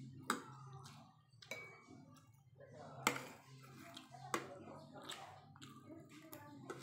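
Metal spoon and fork clinking and scraping against a ceramic plate while scooping rice, with sharp clinks every second or so, the loudest about three seconds in.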